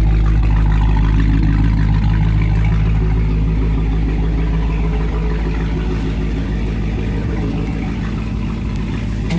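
Dodge Hellcat's supercharged 6.2-litre HEMI V8 running at a steady, deep engine note, easing off slightly in loudness.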